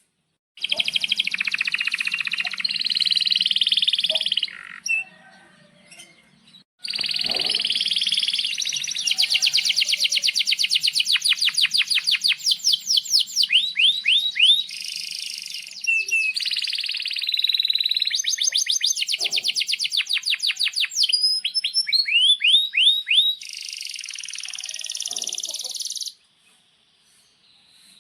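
Male domestic canary singing: a short phrase, a pause of about two seconds, then a long unbroken song of fast trills (rolls), sharp chirps and quick falling sweeps that runs for nearly twenty seconds.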